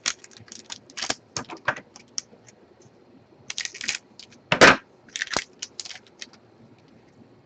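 A pack of trading cards being torn open and its cards handled: an irregular run of crinkling wrapper and sharp clicks, the loudest about four and a half seconds in.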